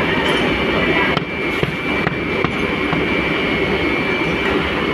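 Steady, loud machinery din of a working foundry with a constant high-pitched whine over it; a few light knocks come between about one and two and a half seconds in.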